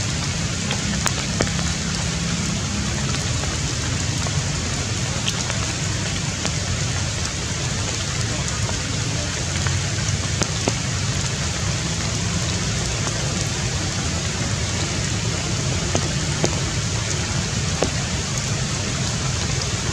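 Steady rain falling on tree foliage: an even hiss with a few sharper drops ticking now and then.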